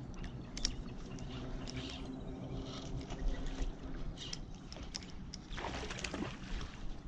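Wind rumble on the microphone over rippling river water, with a hooked salmon splashing at the surface near the end.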